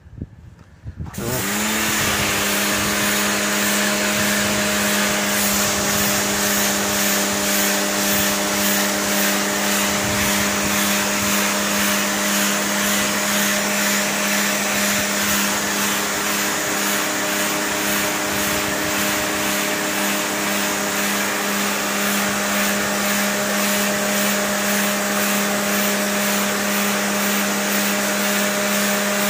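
Takara Europa high-pressure washer starting up about a second in, its pitch rising briefly and then holding a steady hum, with the loud hiss of the water jet hitting concrete as it blasts off algae.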